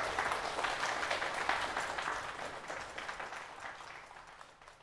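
Concert hall audience applauding, a dense patter of many hands clapping that dies away steadily over the second half.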